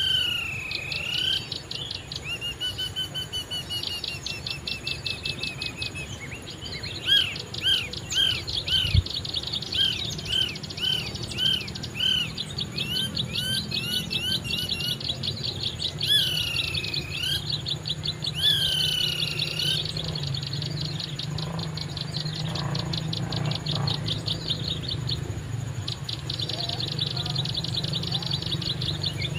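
Small birds calling: sweeping whistled notes, a series of short arched notes about two a second, and long fast chipping trills, over a low steady hum.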